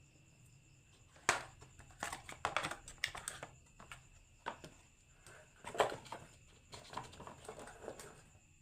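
Marbles rolling and clacking down a marble run: irregular knocks and clicks, some in quick rattling clusters, with two sharper hits about a second in and near the middle.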